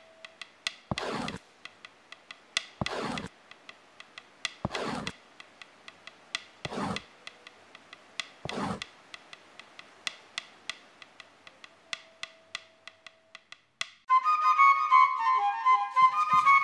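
Five slow rasping swishes about two seconds apart over a scatter of light clicks. The swishes stop about halfway and the clicking goes on. Near the end, music led by a flute melody comes in.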